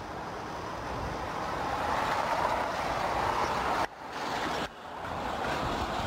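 Rushing outdoor background noise with no distinct calls or voices. It swells over the middle seconds, then breaks off abruptly twice, about four and four-and-a-half seconds in.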